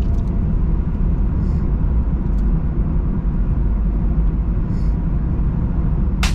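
A car driving along a cleared winter road: a steady low rumble of road and tyre noise with the engine underneath. A short, sharp noise comes right at the very end.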